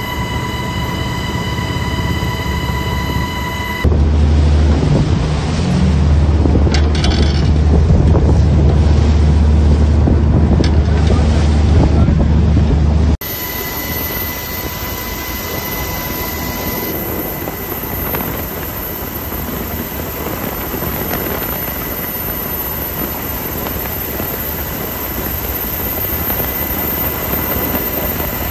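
Sikorsky MH-60T Jayhawk helicopter heard from inside its cabin with the door open: a steady high turbine and gearbox whine over rotor noise. From about 4 to 13 seconds in, heavy wind buffeting on the microphone drowns it in a loud low rumble that cuts off suddenly. After that the whine is fainter under a steady rush.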